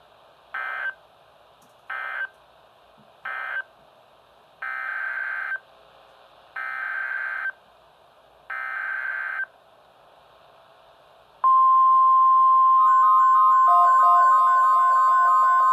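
Emergency Alert System SAME data bursts: three short bursts (the end-of-message code of the finished alert), then three longer bursts (the header of the next alert). About 11 seconds in, a loud steady 1050 Hz NOAA Weather Radio alert tone starts. From about 13 seconds a stepping beep pattern of alternating pitches is layered over it.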